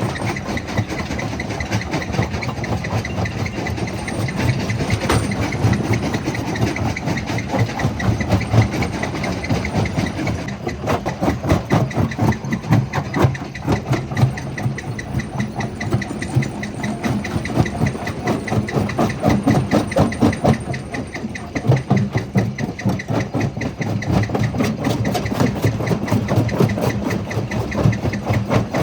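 Jaw crusher running: a steady heavy machine rumble under dense, rapid knocking and rattling of stone.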